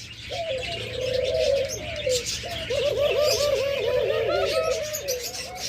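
Doves cooing in long, low notes, with a run of quick rising-and-falling coos about halfway through, over the constant high chirping of many small cage birds.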